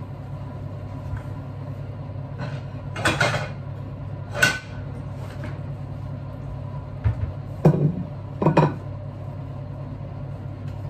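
Kitchen clatter: a metal baking tray and dishes being handled and set down, giving a handful of sharp clanks and knocks over a steady low hum.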